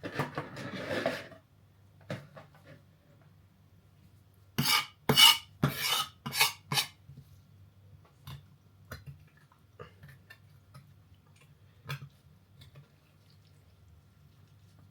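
Metal utensil knocking against a dish as raw chicken is pierced so the marinade can get in: a short scrape at the start, then five quick sharp clacks about five seconds in, and a few faint taps after.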